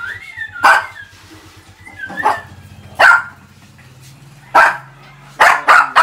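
Small dogs barking at play, a Shih Tzu and a Chow Chow puppy: about seven short, sharp barks at uneven intervals, the last three in quick succession near the end.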